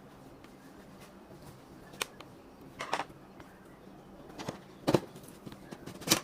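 About five short, sharp clicks and knocks a second or so apart, the loudest near the end: hard parts and tools being handled against the computer's plastic and metal during disassembly.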